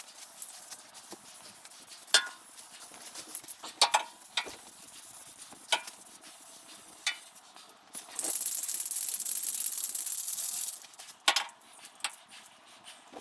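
Light clicks and knocks of tools being handled in a workshop. About eight seconds in comes a steady, high hiss of air lasting about two and a half seconds, as from a spray gun or blow gun being triggered.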